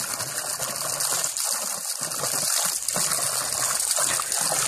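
Garden hose spray nozzle shooting a steady stream of water with a constant hiss, splashing irregularly as the stream hits a miniature horse's face and muzzle.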